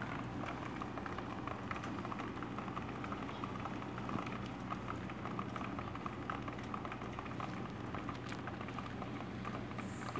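Steady rain falling, a dense patter of drops over a steady low hum.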